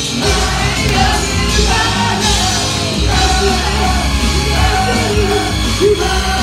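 Loud live music with a vocalist singing and shouting into a microphone over amplified music with a steady low beat.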